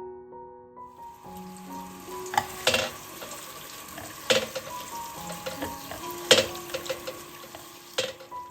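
Food sizzling in a frying pan, starting about a second in, with several sharp clicks of a utensil against the pan as it is stirred. Soft piano music plays underneath.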